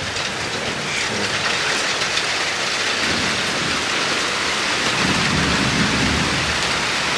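Heavy rain pouring down in a thunderstorm, a steady, even hiss of water hitting surfaces; it is heavy rain, not hail. A low rumble comes in about five seconds in.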